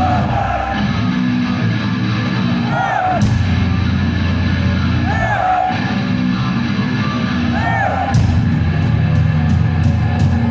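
Heavy metal band playing live: distorted guitars over bass and drums, with a short wailing figure repeating about every two and a half seconds and the drums hitting harder about eight seconds in.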